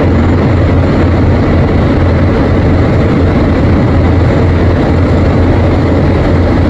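Engine noise of a display jet aircraft flying past, heard as a steady, deep rumble.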